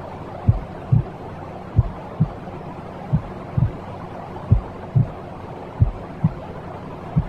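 A slow heartbeat, its deep thumps coming in lub-dub pairs about every second and a third, over a steady white-noise hiss.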